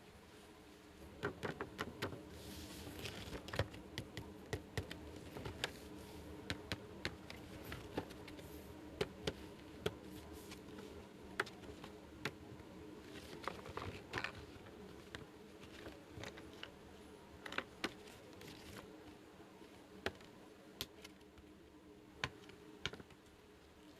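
Small plastic toy pieces being handled and set down: irregular light clicks and taps, a few close together, with brief rustles now and then.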